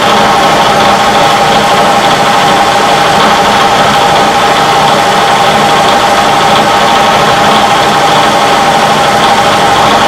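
Metalworking machine tool running steadily under power, a constant motor and spindle whine with no change in speed.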